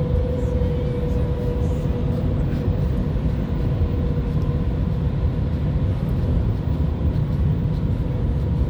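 Steady low rumble of highway traffic, with a steady hum that fades out about halfway through.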